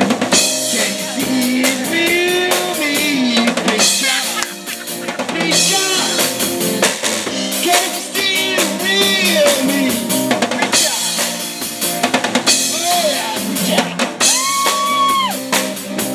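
Live rock band playing: a drum kit with snare, bass drum and cymbals driving the beat under electric guitar, with a melody line sliding up and down in pitch.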